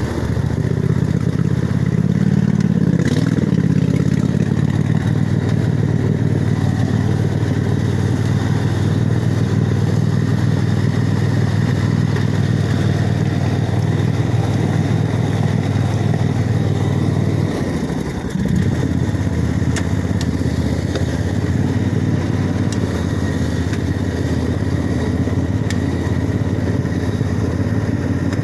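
Montgomery Ward lawn tractor's engine running steadily under load while the tractor drives through muddy floodwater. The engine note rises about two seconds in and sags briefly for a moment around eighteen seconds in before picking up again.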